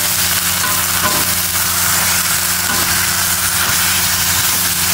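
Pak choy sizzling as it is stir-fried in a wok with oil and tom yam paste, a metal spatula scraping the pan now and then. A steady low hum runs underneath.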